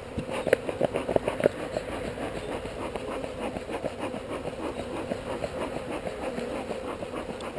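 Swarm of honeybees buzzing around an open hive: a steady hum. Several sharp taps sound in the first second and a half.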